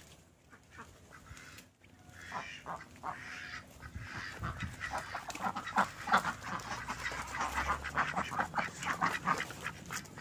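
Domestic ducks quacking: a run of short, rapid calls that starts faint and grows louder and busier from about four seconds in.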